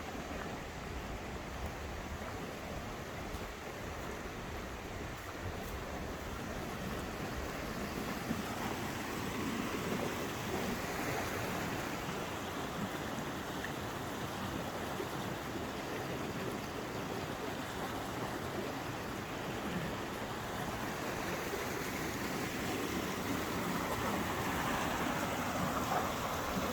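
Stream water flowing steadily, a continuous rushing that swells somewhat around the middle and again near the end.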